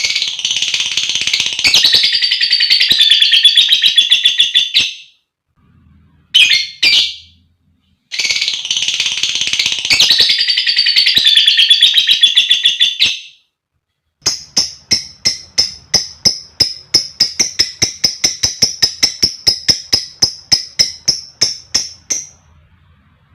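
Female lovebird calling: two long, dense high-pitched chattering runs with a short squawk between them, then a long series of sharp repeated chirps at about four a second.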